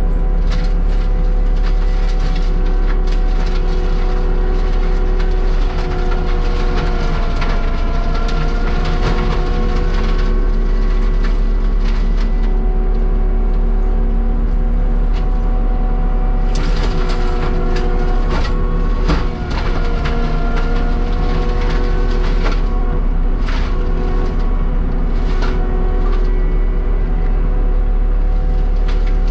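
Heavy land-clearing machinery running hard and steady, its pitch sagging briefly under load about 7 and 19 seconds in. Sharp cracks and snaps of breaking wood come through, most often in the second half.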